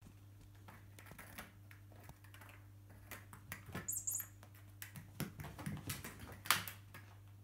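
A cat scampering and pouncing across a woven rug and carpet: irregular scuffs, scratches and taps of paws and claws, busiest in the second half, with the sharpest tap about six and a half seconds in. Two short high squeaks come about four seconds in.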